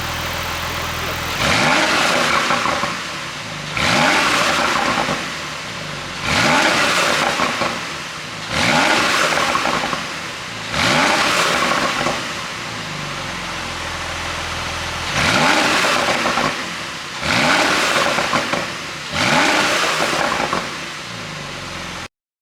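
2017 Porsche 911 Targa 4S twin-turbo flat-six idling and blipped eight times, each rev climbing sharply and falling back to idle. The revs come every two seconds or so, with a pause midway, and the sound cuts off suddenly near the end.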